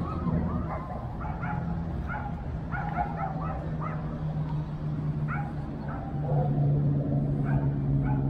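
A dog barking over and over in short, high yaps, over a steady low hum.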